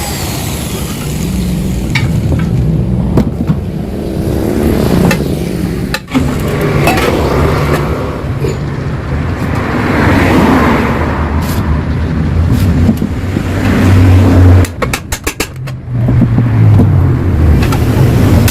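Power tool cutting into the steel of a Yamaha RX-King exhaust muffler that is being opened up, a loud, continuous noise with a low hum and short breaks near the end.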